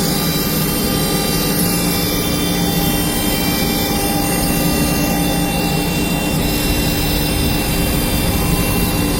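CNC router running steadily while cutting MDF: a constant high spindle whine with several fixed tones over a dense rushing noise.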